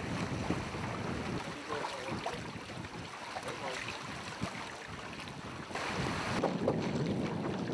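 Water rushing past the hulls of a sailing trimaran under way, with wind buffeting the microphone; it gets louder about six seconds in.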